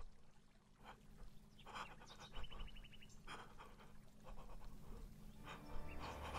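Faint, irregular breathy huffs like panting, with a brief quick run of ticks about two and a half seconds in. Low music starts near the end.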